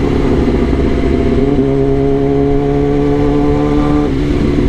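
Kawasaki ZX-10R's inline-four engine running at steady low revs on the move, its note stepping up slightly about a second and a half in and dropping back near the end, over a low rumble.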